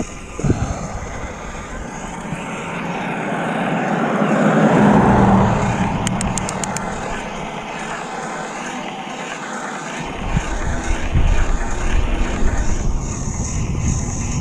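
Downhill mountain bike being ridden: a steady rush of wind noise that swells to its loudest about five seconds in, then from about ten seconds on a heavy, uneven rumble and rattle of the bike over rough ground.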